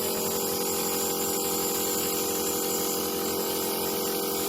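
Nebulizer's electric compressor running steadily, a hum with a hiss over it, as it turns the saline in its cup into mist.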